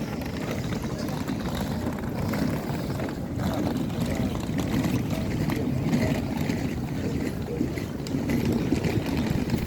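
City street noise: a steady low rumble of traffic with faint voices of passersby.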